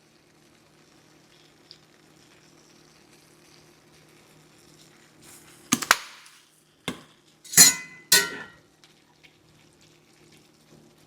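Ground beef sizzling faintly in a skillet, then a few sharp knocks and short scraping clatters of a utensil against the pan in the middle stretch as the meat is broken up and stirred.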